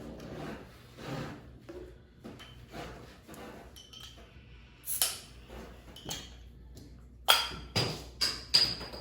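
Soda bottles being shuffled around on a table, knocking together: a sharp clink about five seconds in, then a quick run of four or five ringing clinks near the end.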